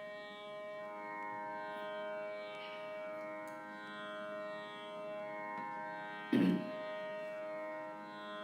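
Tanpura drone sounding steadily, its strings ringing on as a sustained Carnatic pitch reference, with a brief louder sound about six seconds in.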